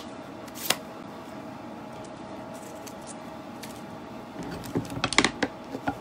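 Craft supplies handled on a desk: one small click about a second in, then a quick cluster of sharp clicks and taps near the end, over a steady low hum.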